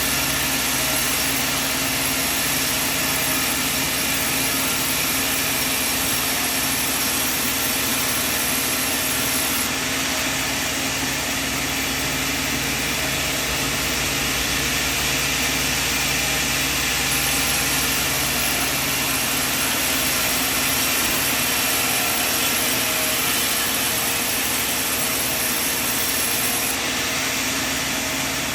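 Sawmill machine running steadily: a continuous mechanical hum with a high whine that comes and goes a few times.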